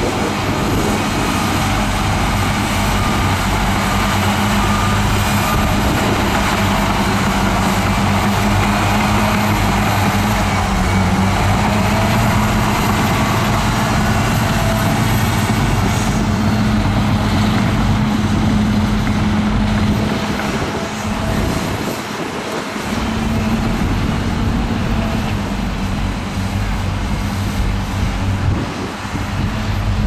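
Shantui DH13 crawler bulldozer's diesel engine running steadily under load while it pushes dirt, a constant drone with a brief drop in level a little past two-thirds through before it picks up again.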